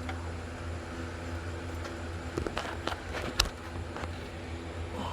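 A few short, sharp clicks and knocks from tools and parts being handled on the truck engine, bunched a little past the middle, over a steady low hum.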